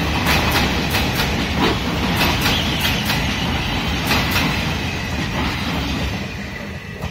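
Passenger train coaches rolling slowly past, their wheels clacking over rail joints several times a second over a steady rumble, fading near the end.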